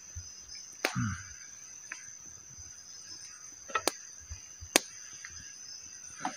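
Campfire wood crackling with a handful of sharp pops, over a steady high-pitched drone of night insects.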